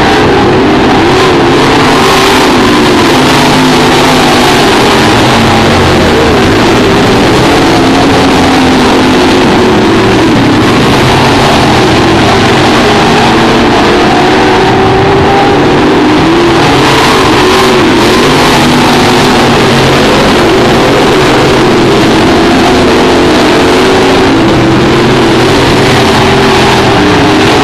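Several limited late model dirt-track race cars with V8 engines lapping the oval. Their engine notes rise and fall together as they accelerate and lift around the track, loud and unbroken throughout.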